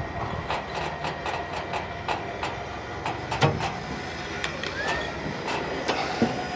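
1959 Willys truck rolling along, its body and old running gear rattling and clanking in irregular knocks over a steady low rumble.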